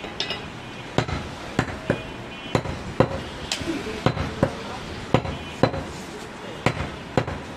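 Butcher's cleaver chopping goat mutton, a dozen or so sharp chops at an uneven pace of about two a second.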